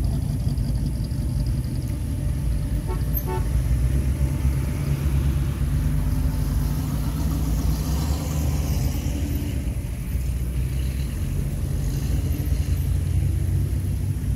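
Classic cars driving past in a steady stream, their engines running with a continuous low rumble. A short horn toot sounds about three seconds in.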